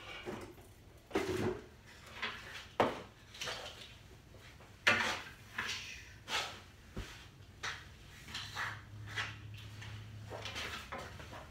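Scattered knocks, clunks and rattles of objects being moved and handled out of sight, coming at irregular moments, with a faint low hum for a couple of seconds near the end.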